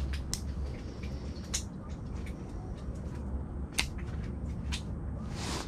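Handling of a fishing rod and reel: scattered light clicks and rustling over a steady low hum.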